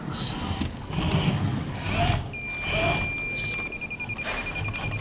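A high electronic buzzer tone starts about halfway through, holds steady for about a second and a half, then turns to rapid beeping at roughly ten beeps a second. It sits over background noise with several short bursts of hiss in the first half.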